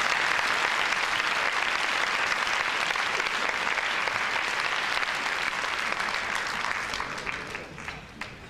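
Large audience applauding steadily, the clapping thinning out and fading near the end.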